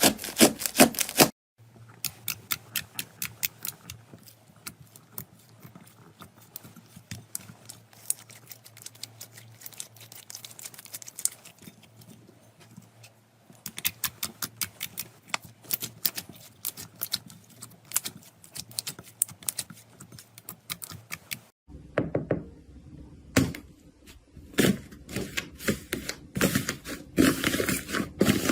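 Slime being pressed, squeezed and poked by hand, making runs of small crackling clicks and pops, with a few louder thunks near the end.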